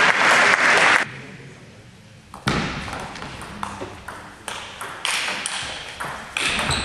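Table tennis rally: the ball clicking sharply off the bats and the table in a quick back-and-forth, about two hits a second, starting about two and a half seconds in. Before it, applause stops about a second in.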